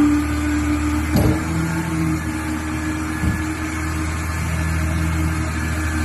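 Dump truck's diesel engine running steadily to power the hydraulic hoist as the loaded tipper body rises to dump sand, a steady hum with two dull knocks about one and three seconds in.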